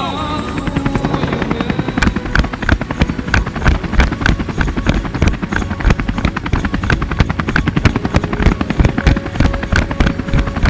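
A long run of rapid, even thuds mixed over music, starting about two seconds in.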